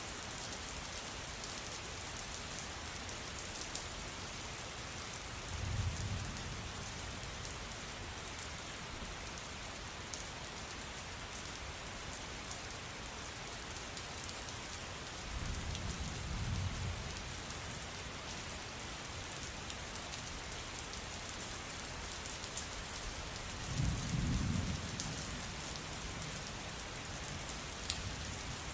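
Steady rain falling on a surface, with three short, low rumbles of distant thunder about ten seconds apart.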